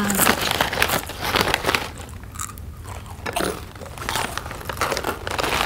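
Crunching bites and chewing of crisp snack food close to the microphone, a string of sharp crackles that eases off around the middle and picks up again near the end.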